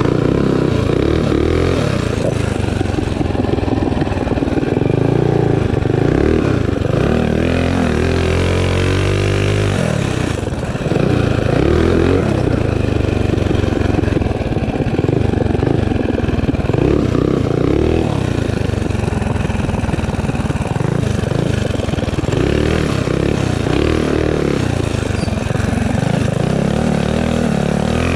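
Minibike's small single-cylinder engine revving up and easing off again and again under riding load, its pitch rising and falling, with a brief drop off the throttle about ten seconds in.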